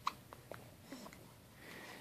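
A newborn baby hiccuping: one sharp hiccup right at the start, then a few fainter short catches and small sounds.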